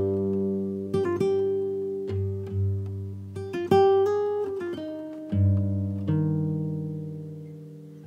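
Background music: slow acoustic guitar, plucked notes and chords that ring on and fade away.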